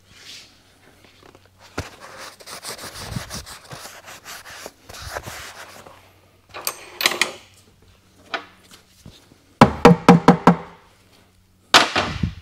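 Hand-tool and metal work on an automatic transmission's oil pan: a rattling run of close clicks, then scattered clicks, then a quick cluster of loud, ringing metal knocks and a final loud clatter near the end.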